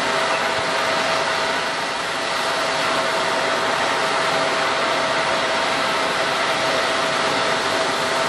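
Jet airliner's turbofan engines running steadily: an even roar with a constant whine through it.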